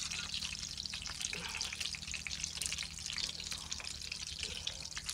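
Ponyfish cakes sizzling and crackling steadily in hot oil in a frying pan.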